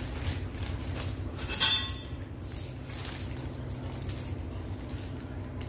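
Metal saddle-stay brackets and their packing being handled as they are unwrapped, with one sharp clink about a second and a half in, over a steady low hum.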